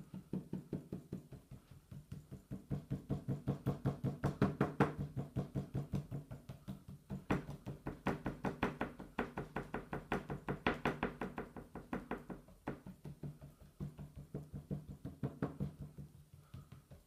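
Rapid, steady tapping of a metal spatula along a mould filled with wet casting compound, several taps a second with a couple of brief pauses, done to bring trapped air bubbles to the surface.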